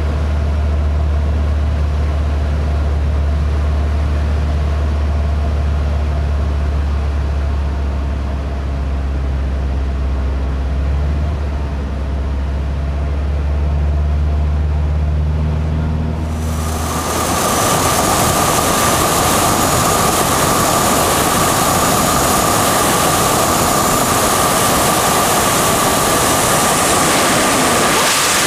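Steady low drone of a single-engine propeller plane heard inside the cockpit; about 17 seconds in it cuts abruptly to loud wind rush over an outside-mounted camera, with the engine as a steady high whine underneath.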